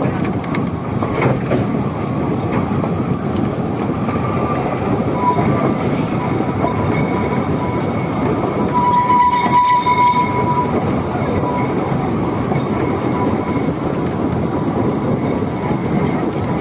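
Narrow-gauge steam train running, heard from an open passenger carriage: a steady rumble of wheels on track. A thin high-pitched tone comes and goes from a few seconds in and is strongest just past the middle.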